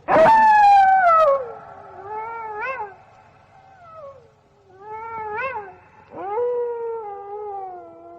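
Wolves howling: a loud howl that starts suddenly and slides down in pitch, then howls that waver up and down, and a long howl that starts about six seconds in and slowly falls.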